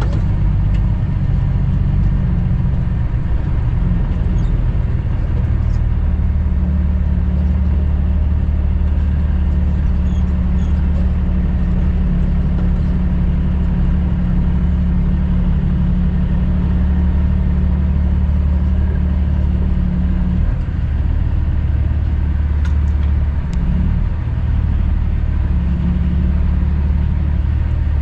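Cummins ISX diesel engine of a 2008 Kenworth W900L running steady and low, heard from inside the cab as the truck rolls slowly. The engine note shifts a few times, about 3 and 6 seconds in and again near the end.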